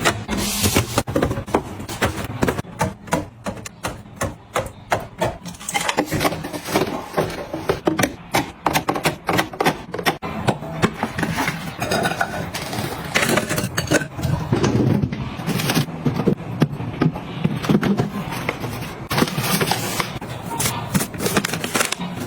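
Kitchen items being handled and set down during restocking and organizing: a busy run of quick clicks and knocks with some scraping and rubbing.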